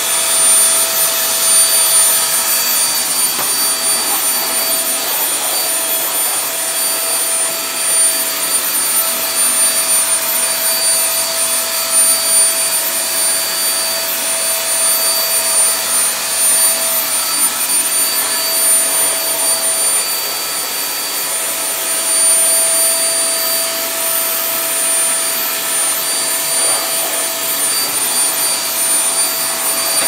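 Household vacuum cleaner running steadily: a rush of air with a constant high motor whine over it.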